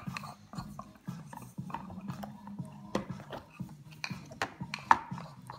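Plastic baby bottle knocking and sliding against a high-chair tray as a baby pushes and turns it: irregular clicks and knocks, the loudest about five seconds in.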